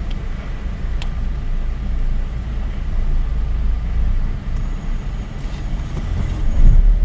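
Car engine idling with a steady low rumble, heard from inside the cabin while the car waits in a queue.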